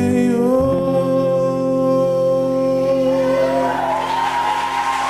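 Live worship band and singing voices holding a long final chord at the close of a song. Applause and cheering from the crowd begin to swell in over it near the end.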